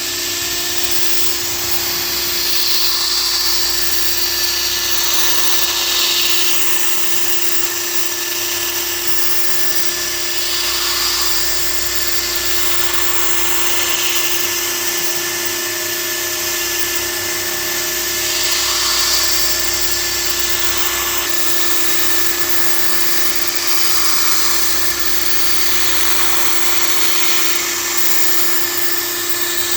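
CNC milling machine running with a steady whine while its cutter enlarges a hole in a mold; the cutting noise swells and eases every few seconds.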